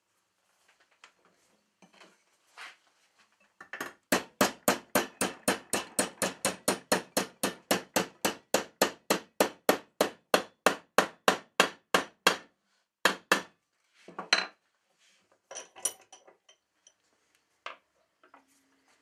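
A hammer striking a round steel rod clamped in a bench vise to bend it over: a fast, even run of about four blows a second for some eight seconds, then a few single blows and lighter clinks.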